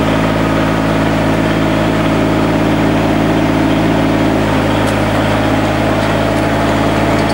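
Mini excavator's engine idling steadily.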